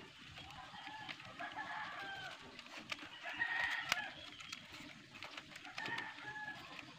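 Chickens clucking and a rooster crowing, the calls coming in three stretches, loudest near the middle. Underneath are light clicks and rustling of thin bamboo strips being woven into a trap.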